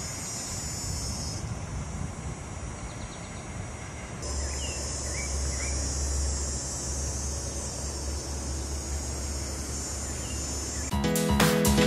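Outdoor summer tree ambience: a steady high-pitched insect drone in the trees, with a few short bird chirps about five seconds in, over a low rumble. Music starts abruptly near the end.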